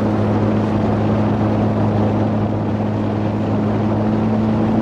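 Outboard motor of an inflatable boat running at a constant cruising speed, a steady unchanging drone heard from on board.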